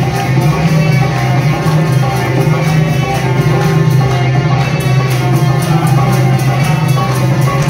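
Live Indian devotional folk music: a bulbul tarang (Indian banjo) plays the tune over a dholak drum beat, with hand-clapping on the rhythm.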